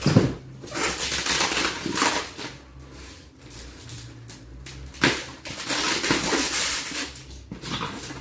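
Packaging on a large boxed collectible figure being handled and opened: rustling and crinkling in irregular bursts, with a sharp knock at the start and another about five seconds in.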